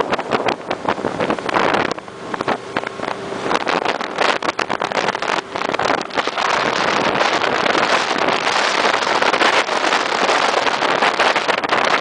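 23 ft speedboat under way: wind buffeting the microphone over the rush of water along the hull and the engine's drone. The noise eases briefly about two seconds in, then builds to a steady, fuller rush from about six seconds on.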